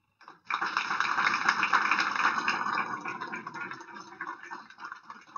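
Audience applauding: the clapping breaks out about half a second in, peaks, then dies away toward the end.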